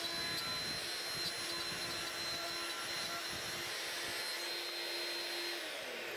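A CNC router's spindle running and cutting, with a shop vacuum drawing dust through the dust shoe: a steady whine over the vacuum's rush of air. Near the end the whine begins to fall in pitch.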